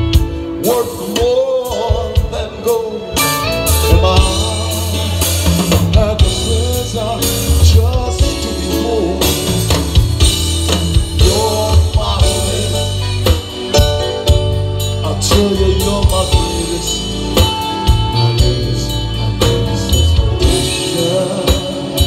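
Live band playing a song: drum kit, bass and electric guitars and keyboard, with a lead singer's voice coming in at times.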